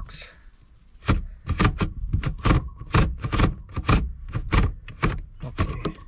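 A 2008 Nissan Frontier's automatic gear shift lever being worked back and forth through its gate, giving a quick series of about fifteen sharp clicks and clunks starting about a second in. This is a test that the shifter works with its cable reattached by a new grommet.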